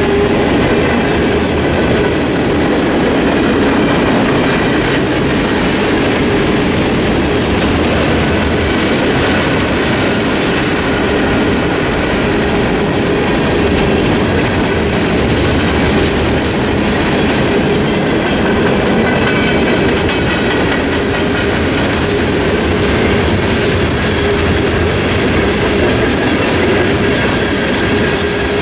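Norfolk Southern mixed freight train's cars rolling steadily through a grade crossing, wheels clattering over the rails. The crossing bells ring along with it.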